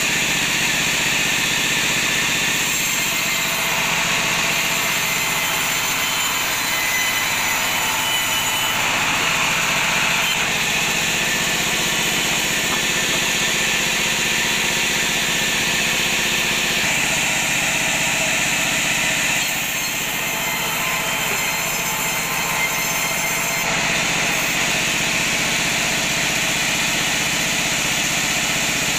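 Belt-driven sawmill bandsaw running steadily while a length of teak offcut is fed through and ripped, the saw then running on without a cut.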